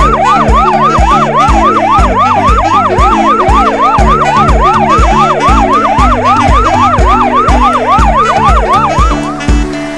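Japanese railway level-crossing alarm ringing fast, about three dings a second, each ding rising and falling in pitch, over swing-style background music with a steady drum beat. The alarm stops shortly before the end.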